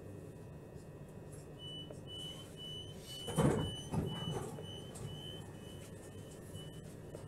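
Train door-closing warning beeps: a high beep repeating a little over twice a second, about a dozen times. Partway through the sliding doors shut with two heavy thuds, over the carriage's low hum.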